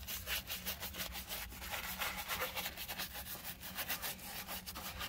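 A hand brush scrubbing wet rust treatment into the rusty steel floor of a car footwell, quick back-and-forth strokes several times a second.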